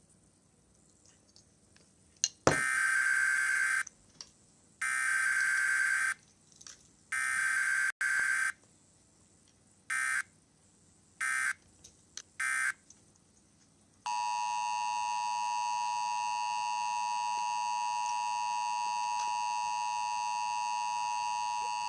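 Emergency Alert System test alert. It begins with a rasping electronic buzz: three long bursts, then three short ones. About fourteen seconds in, the steady two-tone attention signal takes over and runs for about eight seconds.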